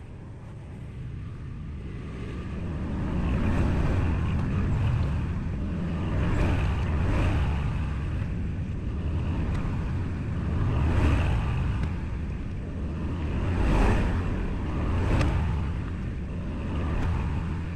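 Kubota L2501 compact tractor's three-cylinder diesel engine running, its loudness rising and falling several times as it works.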